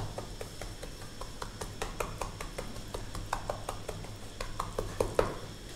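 Sugar syrup bubbling in a wide aluminium pan as it turns to caramel, with a wooden spatula scraping and pressing against the pan. It makes a run of small irregular clicks and pops, several a second, over a steady low hum. The spatula is working the last sugar lumps so they dissolve, a stage in making caramel colouring.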